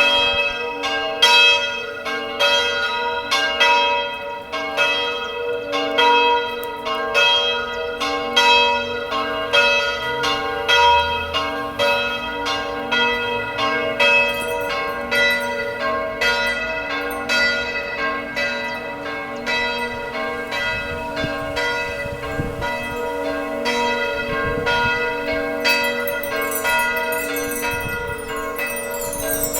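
Church bells rung one after another in a steady, even rhythm, about two to three strikes a second, each bell's tone ringing on into the next.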